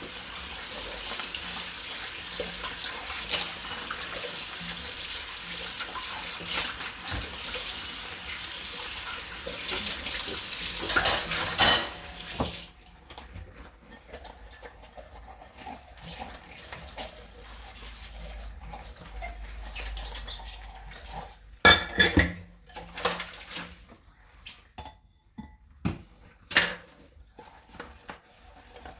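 Washing dishes in a kitchen sink: the tap runs steadily into the sink, then is shut off about twelve seconds in, after which dishes and cutlery clink and knock against each other, with a few sharp clatters near the end.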